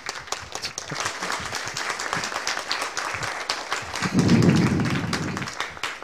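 Audience applauding: many hands clapping at once, steady throughout. A louder, low, muffled rumble rises over it about four seconds in and fades a second and a half later.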